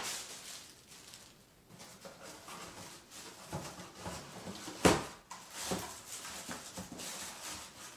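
Plastic packaging crinkling and a cardboard packing insert being handled and pulled apart, in irregular rustles and scrapes, with a sharp loud crack about five seconds in.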